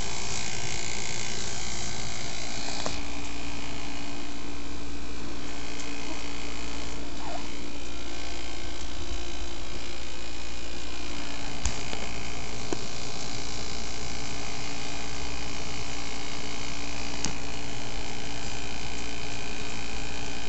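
Steady electrical hum with hiss, holding a few constant tones throughout, and a few faint clicks.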